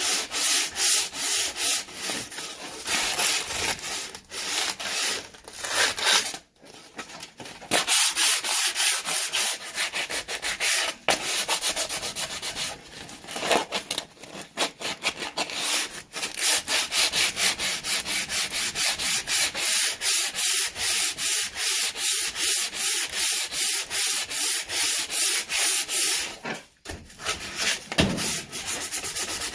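Coarse 60-grit sandpaper rubbed back and forth along a wooden axe handle in quick, even strokes, stripping off its slippery factory finish. It stops briefly twice: once about a third of the way in and once near the end.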